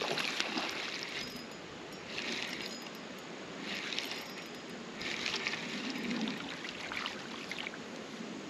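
Spinning reel cranked in five short spurts, a fine clicking whir each time, as a floating minnow lure is retrieved, over the steady rush of a shallow stream.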